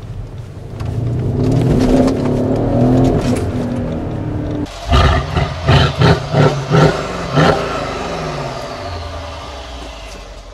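Mercedes ML63 AMG's 5.5-litre twin-turbo V8 accelerating hard, heard from inside the cabin with its pitch rising. About halfway through it switches to the sound at the quad tailpipes: a quick series of about six sharp throttle blips, then the engine settles back towards idle.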